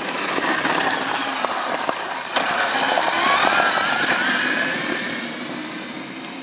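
Tacita T Race electric enduro motorcycle riding past on gravel: the electric motor's whine rises in pitch as it accelerates, over the crunch of tyres on loose gravel. It grows louder as the bike passes, then fades as it rides away.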